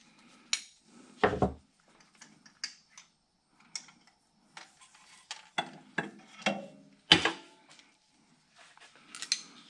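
Scattered clinks, clicks and knocks of hand tools and coil packs and spark plugs being handled in the engine bay. There is a dull thump about a second in, and the sharpest click comes about seven seconds in.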